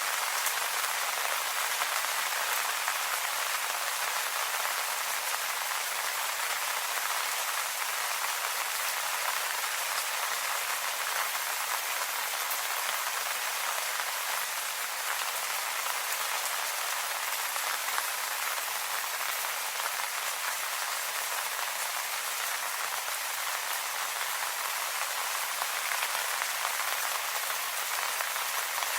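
Steady rain pattering on leaves, a dense even hiss of many small drop impacts.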